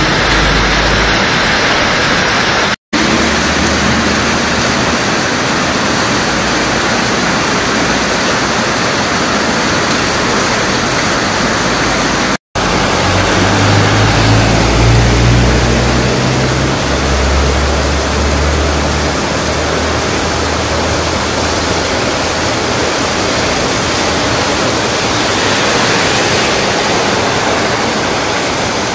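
Heavy rain pouring down in a steady hiss. About halfway through, a low rumble rises beneath it for several seconds, and the sound cuts out for an instant twice.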